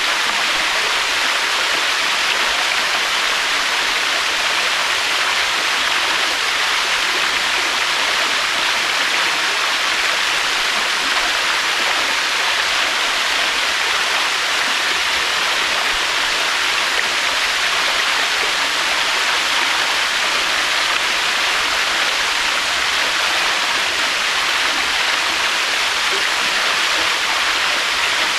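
Waterfall: a steady, unbroken rush of falling water, with no swells or surges.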